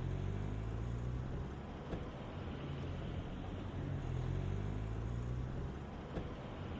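A car engine running at low revs, its pitch drifting slightly up and down, as the car pulls up.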